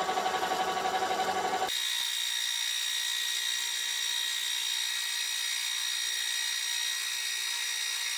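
Metal lathe spindle running while the tool takes a turning cut on a small round bar, a steady machine hum with a pulsing beat. Nearly two seconds in the sound jumps abruptly to a thin, high-pitched whine: the same cut played back at five times speed.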